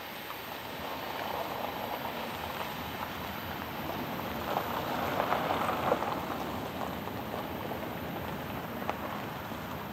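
Cars driving over a railroad grade crossing one after another, their tyres hissing on the road, loudest about five seconds in. Under it, a loaded freight train approaching in the distance.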